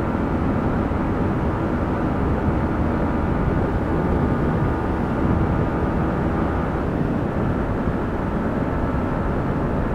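Steady wind blast on the microphone over a Yamaha MT-15's 155 cc single-cylinder engine running at highway speed, about 110 km/h.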